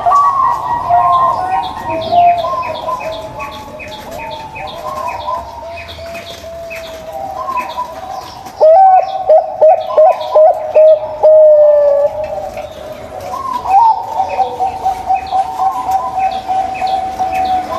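Zebra dove (perkutut) cooing, a rippling run of coos, with a loud burst of rapid staccato notes about halfway through.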